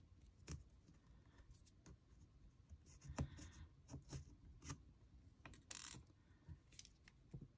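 Faint handling of paper and craft supplies on a tabletop: scattered small clicks, taps and short scratching rustles, the sharpest click about three seconds in.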